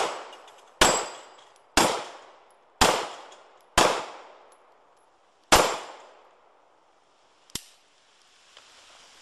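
Handgun shots fired one at a time: four about a second apart, then a fifth after a pause of nearly two seconds, each trailing off in a short echo. It opens on the fading echo of a shot just fired, and a single much quieter sharp click comes about two seconds after the last shot.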